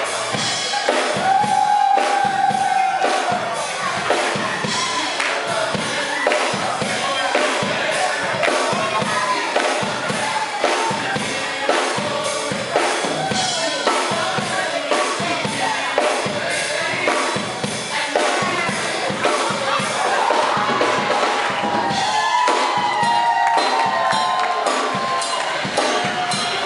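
Gospel music: a drum kit keeps a steady beat under sung melody lines.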